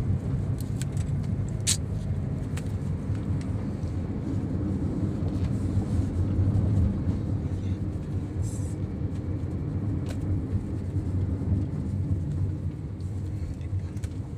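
Steady low rumble of a car on the move heard from inside the cabin: engine and tyre noise, with a few light clicks.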